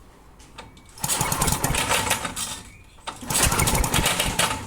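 Briggs & Stratton lawn mower engine cranked by two pulls of the recoil starter cord, each about a second and a half long, turning over without firing while it is checked for spark.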